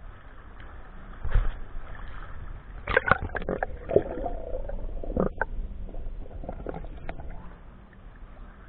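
Muffled underwater sound picked up by a camera held under the surface of a shallow river: a low rumble of moving water, with a knock about a second in and a cluster of knocks and gurgles around three to five seconds in.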